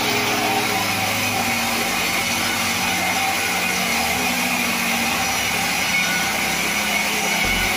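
Sawmill band saw running steadily while it cuts lengthwise through a large log fed on the carriage.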